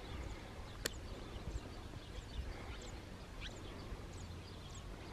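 Faint, scattered high chirps of small birds over a steady low rumble, with a single sharp click a little under a second in.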